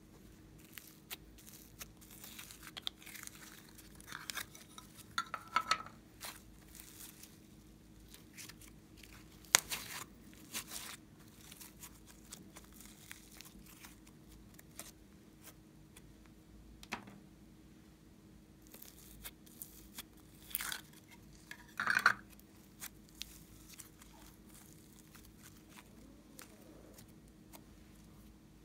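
Glossy glitter slime being handled, stretched and pulled apart by hand: irregular sticky crackles, pops and tearing sounds, a few louder ones about ten and twenty-two seconds in.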